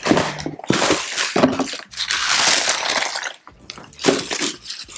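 Clear plastic wrapping and tissue paper being pulled out of a box and handled. A few sharp crackles come first, then a longer steady crinkling rustle.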